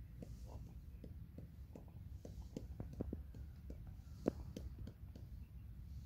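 Faint whispering and scattered sharp clicks and taps over a steady low rumble; the sharpest click comes a bit past four seconds in.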